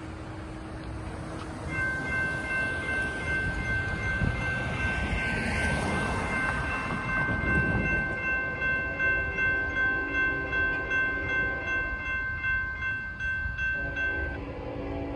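Railroad crossing warning bell starts about two seconds in and keeps ringing as the gate arms come down, pulsing about twice a second. A car passes midway, and near the end a train horn sounds a low chord as the train approaches.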